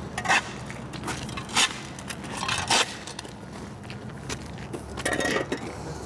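Irregular crunching and scraping on gritty ground and soil, from footsteps and a shovel at work. A few sharper crunches stand out, about half a second, one and a half, two and a half and five seconds in.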